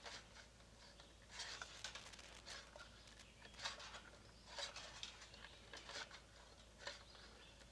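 Faint, irregular scraping and ticking of a flat steel recoil spring being wound by hand into the pulley of a lawn mower's pull-cord starter housing.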